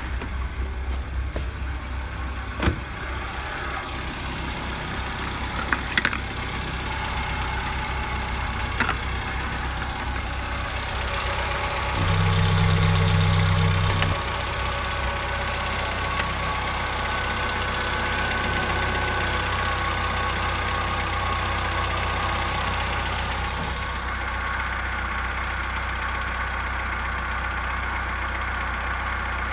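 VW Golf 3 1.6i AEE four-cylinder petrol engine idling steadily, with a few sharp clicks in the first ten seconds and a stretch of about two seconds midway where the hum grows louder.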